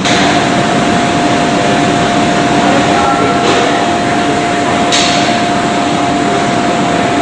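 Workcell machinery running: a loud, even whirring noise with a constant whine that starts abruptly, and a single sharp tick about five seconds in.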